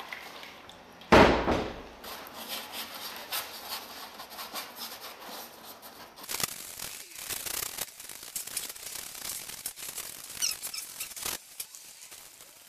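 Wet cement being scooped from a bowl and spread by hand over a carved styrofoam block, with many small scraping and dabbing noises. A single loud bump about a second in.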